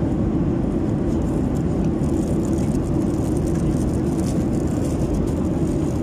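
Steady low roar of an airliner cabin in flight, engine and airflow noise at an even level, with faint rustling of a foil and plastic toy wrapper being handled.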